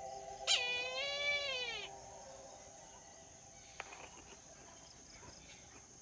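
Brahminy kite giving one long call about half a second in, starting sharply and falling in pitch at its end.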